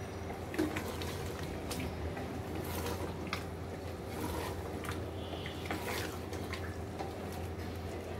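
Wooden spatula stirring a thick chicken curry in an aluminium pressure cooker: wet squelching and scraping with scattered light knocks against the pot, over a steady low hum.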